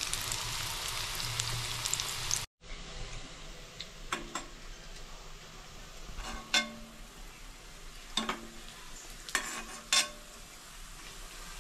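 Chhana (paneer) koftas deep-frying in oil and ghee in a steel kadai, a dense sizzle that breaks off abruptly about two and a half seconds in and then goes on more quietly. A steel ladle clinks sharply against the pan about five times as the fried koftas are scooped out.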